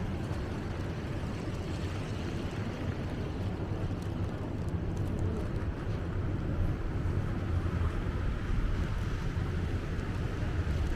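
Wind buffeting the microphone during a snowstorm: a steady low rumble.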